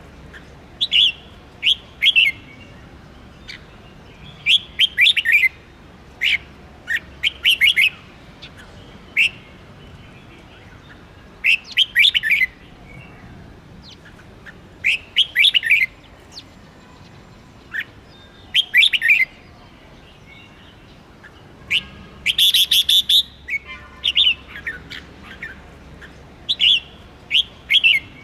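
Red-whiskered bulbul song: short phrases of quick chirping notes, repeated every second or few, with one louder, fuller phrase about two-thirds of the way through.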